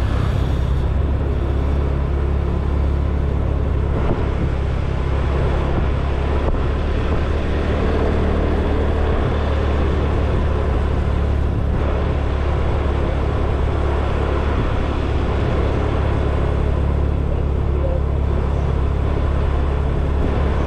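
Motor scooter being ridden along a road: steady engine and road noise with a heavy low rumble throughout.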